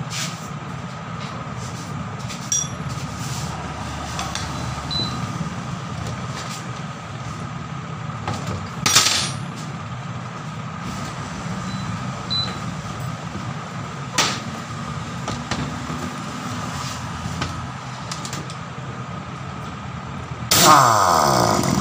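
Steady low background hum with a few sharp metallic clunks of hand tools set down on a workbench, the loudest about nine seconds in. Loud music with sweeping tones comes in just before the end.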